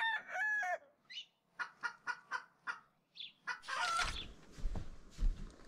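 A rooster's crow ending under a second in, followed by a run of short chicken clucks. Near the end it gives way to rustling and low thuds.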